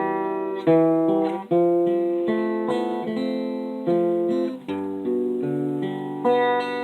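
Acoustic guitar strumming chords, with a fresh strum and chord change about every second.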